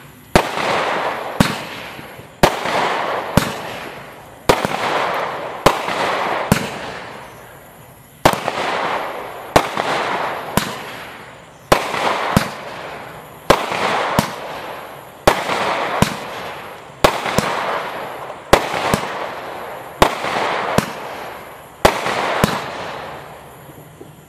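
Total FX Moonshine firework barrage firing shot after shot, about one a second with a brief pause about seven seconds in. Each shot is a sharp bang followed by a hiss that fades over about a second.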